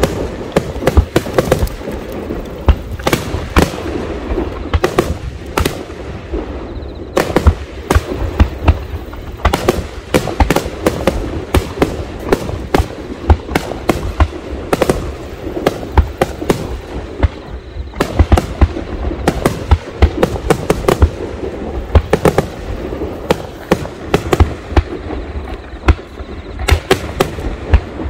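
Aerial fireworks going off in a rapid barrage: a dense, continuous run of bangs and crackles, several a second, over a steady rumble.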